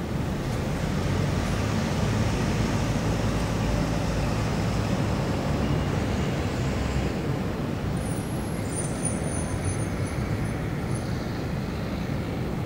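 City road traffic: a steady low rumble of vehicles passing, with a few faint brief high-pitched chirps about two-thirds of the way through.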